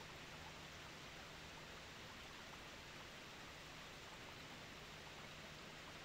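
Faint, steady rush of a spring-fed waterfall, with groundwater pouring out of gaps in a mossy rock face.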